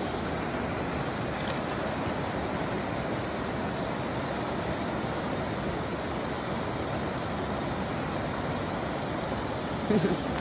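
Steady rush of a flowing river, an even wash of water noise with no break. A brief voice-like sound comes just before the end.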